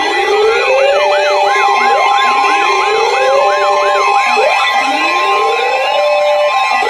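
Several siren sounds layered together. A slow rising wail repeats about every two and a half seconds over a fast yelp that cycles about three times a second. Steady high tones run underneath, one of them joining about a second and a half in.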